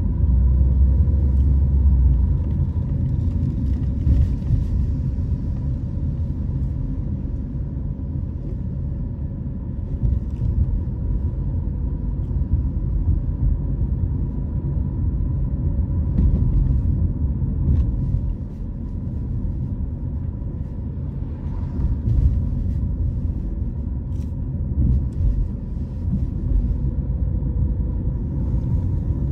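A car being driven, heard as a steady low rumble of engine and road noise with a faint steady hum above it. It eases off briefly about two-thirds of the way through.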